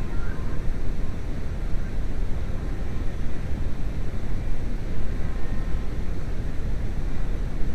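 VW New Beetle 2.0L AEG four-cylinder engine running with a steady low rumble that rises and falls unevenly, the rough running of a misfire on cylinder #4.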